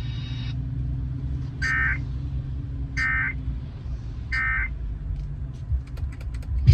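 Emergency Alert System end-of-message signal from an FM radio broadcast: three short bursts of warbling two-tone digital data, a bit over a second apart, marking the end of the severe thunderstorm warning. A steady low rumble runs underneath.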